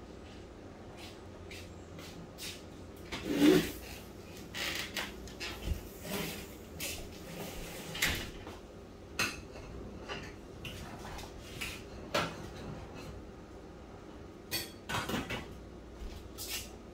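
Irregular knocks and clatters, a dozen or so, the loudest about three and a half seconds in.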